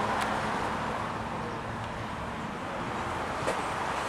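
Piper PA-28 light aircraft's propeller engine droning as it flies away, slowly fading over a steady outdoor rumble with some wind noise.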